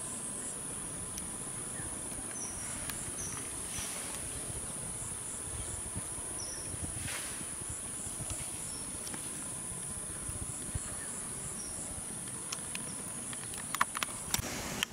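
Steady high-pitched insect drone, a single held buzzing tone, with a few short chirps over it. A handful of sharp clicks come just before the drone cuts off near the end.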